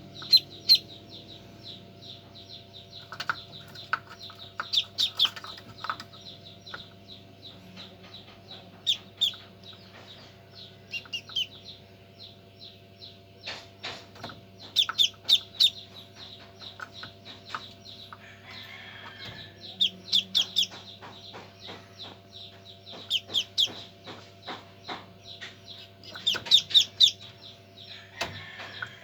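Newly hatched Muscovy ducklings peeping inside an automatic egg incubator: short high peeps coming in quick clusters every few seconds, over the incubator's steady machine hum.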